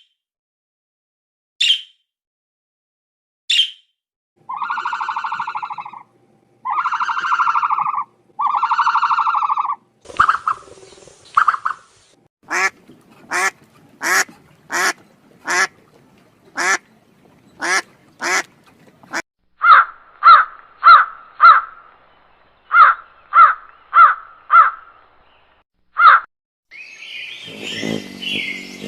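A sequence of different birds calling. Three short, high chirps come first, then three long nasal calls of about a second and a half each. A run of sharp, evenly spaced notes, about two a second, follows, then a series of short clipped calls.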